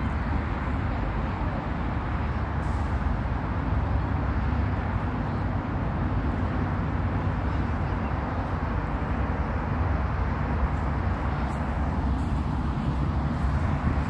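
Steady low rumble of road traffic from an elevated highway.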